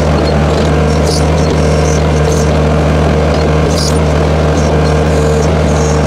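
Case 1845C skid steer engine running steadily under load while powering a backhoe attachment's hydraulics as it digs, with a steady whine over the engine note and a few brief hissy bursts.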